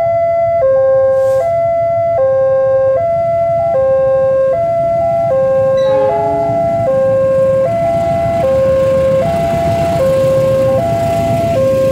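Electronic level-crossing warning bell sounding its alternating two-tone chime, the high and low notes swapping about every three quarters of a second. A diesel locomotive and passenger carriages pass through the crossing, their low rumble growing over the second half.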